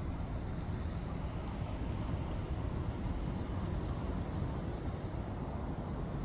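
Steady city street background noise: an even low rumble like distant traffic, with no distinct events.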